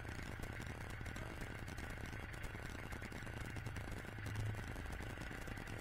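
Kubota B1600 compact tractor's diesel engine idling steadily with a light rattle, rising briefly about four seconds in.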